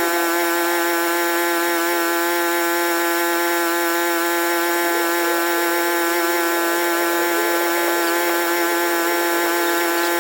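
Electric motor of power-driven dryer vent cleaning equipment running at a constant speed, giving a loud, steady, high-pitched whine.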